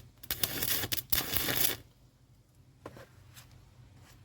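Stick welding arc on aluminum boat hull with a 3/32 aluminum rod: the arc crackles and sputters for about a second and a half, with a brief break in the middle, then stops. A couple of faint clicks follow.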